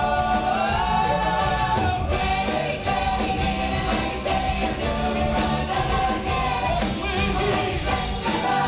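Live rock-and-roll stage musical: a band with drums plays under cast voices singing. Held sung notes open the passage, and the full band carries on with a steady beat.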